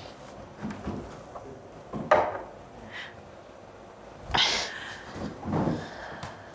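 Hands slapping and thumping on a tabletop: a few separate knocks, about two seconds in, a louder one past the middle, and another shortly after.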